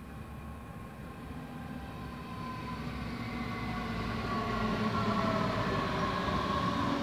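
DB class 422 S-Bahn electric multiple unit approaching and running in alongside the platform. It grows steadily louder, with a whine of several tones that falls slightly in pitch over a low rail rumble.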